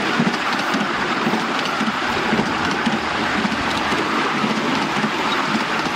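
Miniature railway train running along its track, heard from on board: a steady rumble and clatter of the wheels on the rails.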